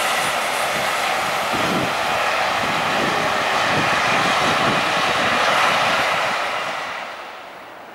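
Container freight train's wagons rolling past: a steady wheel-on-rail rolling noise with a string of low knocks, which fades out about seven seconds in.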